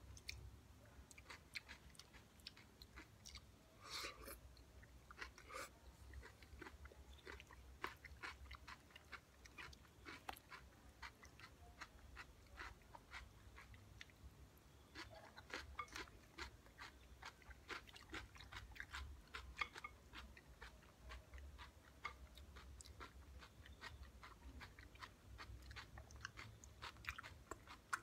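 Faint, close chewing of crunchy raw salad of cucumber, tomato, onion and cheese: a steady run of small, crisp crunches and wet mouth sounds.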